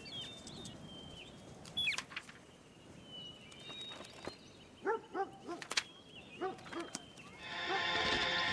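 Outdoor park ambience with birds chirping in thin high whistles, and a few short animal yelps about five to six seconds in. Music begins near the end and becomes the loudest sound.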